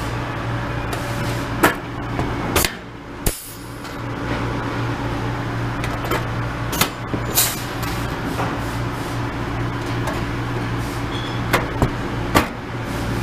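Blind rivets being pulled with a rivet puller to fasten aluminium wing ribs to the spar. Each rivet sets with a sharp snap, and several snaps come at irregular intervals over a steady workshop hum.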